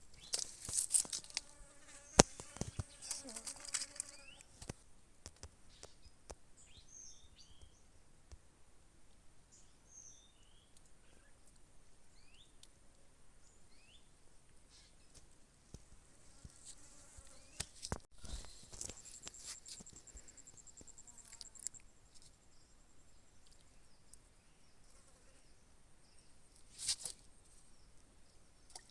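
Steady high-pitched insect drone with a faint chirp now and then, broken by several bouts of rustling and clicking handling noise, the loudest at the start and again about 17 to 21 seconds in.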